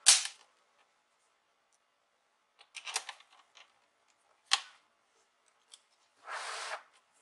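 Sharp plastic clicks and snaps from the bottom case of an HP Pavilion 15 laptop as it is pressed and handled. There is one click at the start, a few about three seconds in and another a second and a half later. Near the end comes a short scraping swish, like the case being slid across the work surface.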